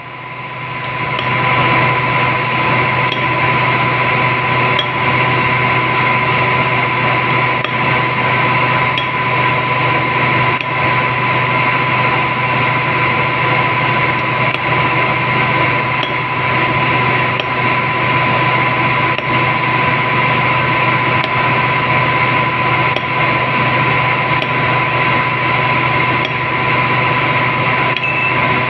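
A steady, loud hiss and hum with a constant high tone. Under it are faint light taps about every two seconds, from a hammer striking a punch to cut a gasket out of Klinger jointing sheet.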